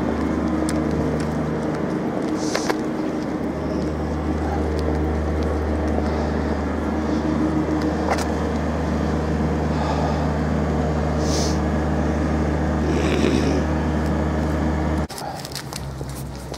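A steady, low mechanical hum with a deep drone, like a large engine or plant machinery running, with a few light clicks over it. It cuts off suddenly about fifteen seconds in.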